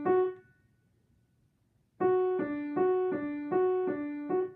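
Sohmer & Co. piano with one hand alternating two notes, F sharp and D, at about three notes a second. The figure breaks off shortly after the start and, after a silence of about a second and a half, is played again.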